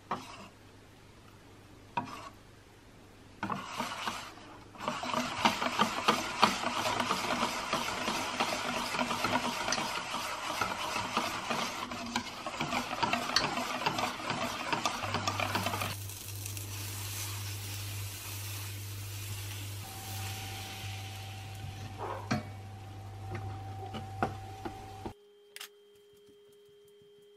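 Wire whisk beating crêpe batter in a metal bowl: a few separate clinks, then a long run of rapid scraping and clinking strokes. These give way to a quieter steady hiss with a low hum, and near the end the sound drops suddenly to a faint steady tone.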